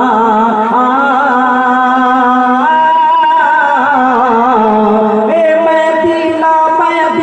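A man sings a Bengali gojol (Islamic devotional song) into a microphone. He holds long notes with wavering ornaments, moving to a higher note about two and a half seconds in and to another phrase near five seconds.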